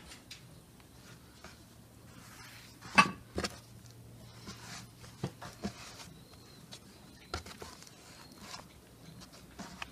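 Hands working soft dough on a wooden board: faint rubbing and handling with a few short knocks, the loudest a single sharp knock about three seconds in.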